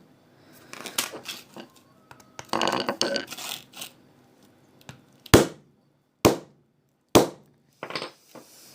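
Screwdriver striking a phone's rear camera three times, sharp hard knocks about a second apart, after a stretch of clattering as the phone and tool are handled.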